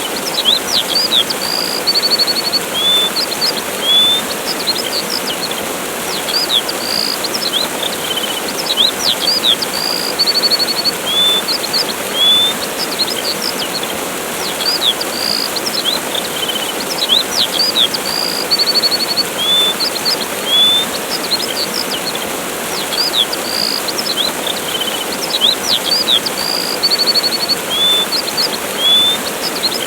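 Steady rush of a waterfall, with many songbirds chirping over it: short sweeping chirps and a few buzzy trills, recurring throughout.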